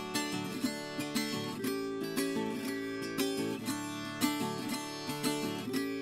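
Viola caipira, the Brazilian ten-string folk guitar with five doubled courses, played solo: a fingerpicked run of plucked notes and chords, a new note every fraction of a second, the strings left ringing.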